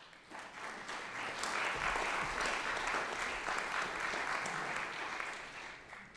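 Audience applauding. The clapping builds over the first second, holds steady, and dies away near the end.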